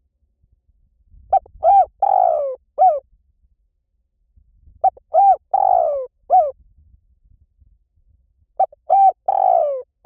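Spotted dove cooing its song three times, about every three and a half seconds. Each phrase is a couple of short coos, a longer falling coo and a short closing coo.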